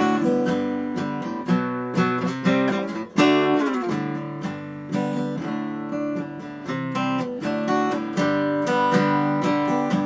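1980 Hofner six-string acoustic guitar being played, with picked notes and strummed chords of a song. There is a momentary break about three seconds in.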